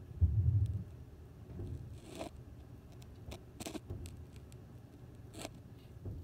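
A low, muffled thump lasting about half a second just after the start, then a scattering of short, sharp clicks and taps.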